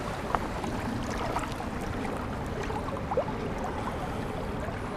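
Steady rush of fast-flowing spillway water, with a few faint clicks.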